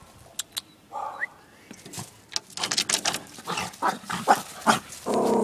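Dog barking: a quick run of short, sharp barks in the second half, ending in a longer, rougher bark.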